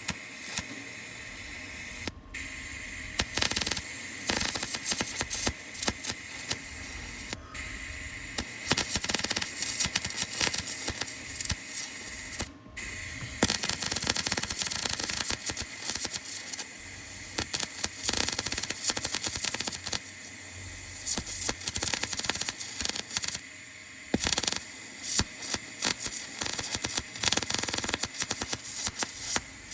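Electric welding arc crackling and sizzling in runs of several seconds, broken by short pauses between beads, as a vehicle frame is welded.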